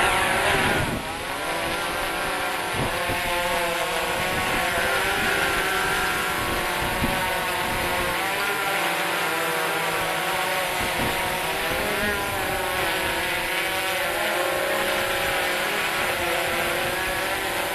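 DJI Phantom 3 Professional quadcopter's four motors and propellers spinning up for takeoff, then a steady whine of several tones that drift up and down as the motors change speed in flight.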